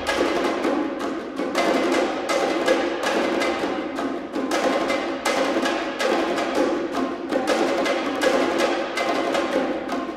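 Background music driven by percussion, with quick repeated drum strikes over a dense instrumental bed.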